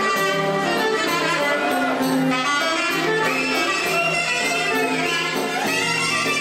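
Live Greek folk dance music: clarinet and violin play an ornamented melody with sliding notes over a steady beat.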